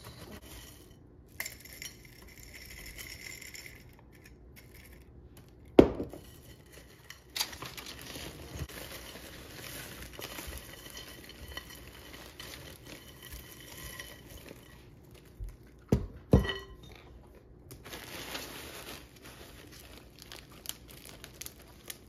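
Baked pecans being moved into glass mason jars: a rattle of nuts and clinks of glass, with a few sharp knocks. The loudest knock comes about six seconds in, and two more come close together at about sixteen seconds.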